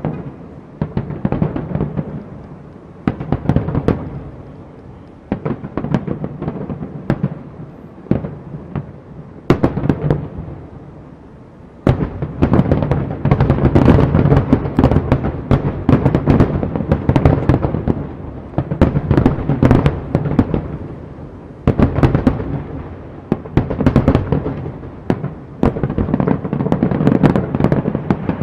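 Aerial fireworks going off in a display: many sharp bangs and booms in quick, irregular succession, coming in waves that build to dense volleys in the second half.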